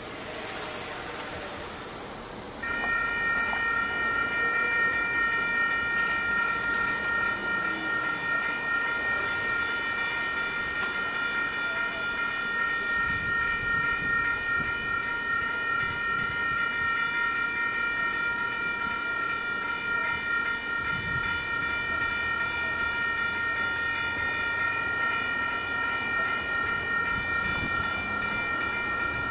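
Railroad crossing warning bell starts ringing about three seconds in and keeps ringing steadily, warning of an approaching train.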